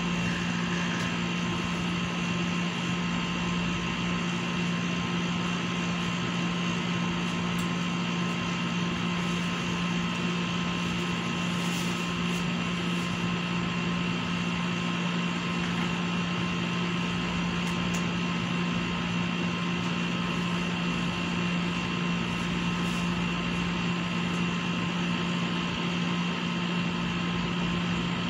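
Steady machine hum with a low drone and a few fainter whining tones above it, unchanging throughout.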